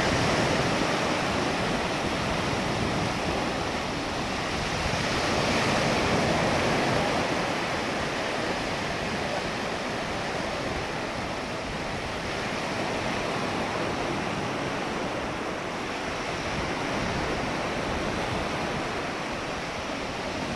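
Ocean surf washing on a beach: a steady rushing noise that swells and eases every few seconds.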